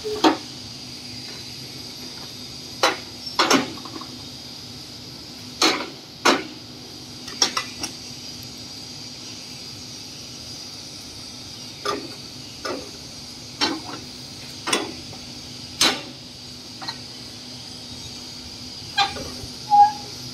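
QMR2-40 manual lever-operated brick press: sharp metal clanks and knocks at uneven intervals, some in quick pairs, as the steel lever, lid and mould are worked, over a steady background hum.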